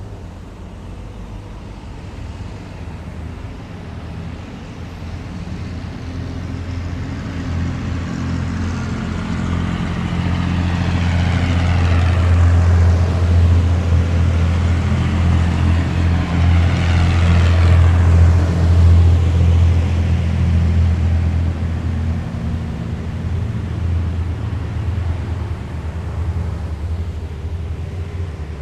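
Heavy military vehicles driving past on a city street: a deep engine drone with a whine from the running gear that builds to a peak about halfway through and then fades as they move away.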